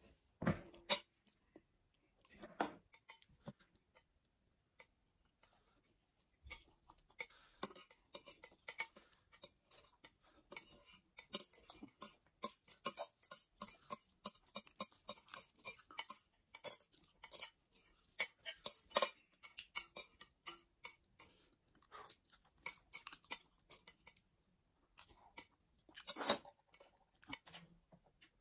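Metal chopsticks tapping and scraping on ceramic plates in quick, irregular clicks, sparse at first and steady from about six seconds in, with some chewing.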